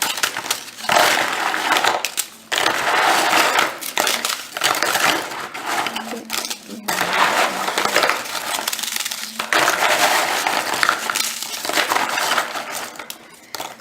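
Honey Maid graham crackers being broken up and crushed for a cheesecake crust: an irregular run of dry crackling and crunching in bouts, with short pauses between them.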